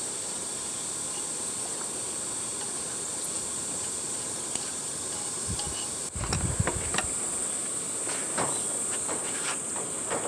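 Steady high-pitched chirring of insects in the surrounding trees. From about six seconds in, scattered light clicks and knocks are heard over it.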